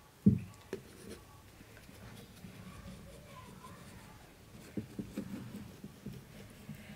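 Large kitchen knife cutting through a round of raw dough and pressing onto a metal tray: a thump just after the start, a few light knocks and a scraping of the blade, then a cluster of soft knocks near the end as the next cut goes through.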